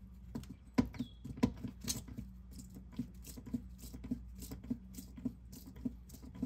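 Quart-size hand pump being stroked to push automatic transmission fluid up into a transmission's fill hole: its plunger clicks and squeaks about two to three times a second, with one short falling squeak about a second in, over a steady low hum.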